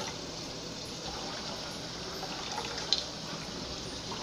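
Water pouring from a glass measuring cup into a nonstick saucepan that already holds some water, a steady splashing stream, with one short knock about three seconds in.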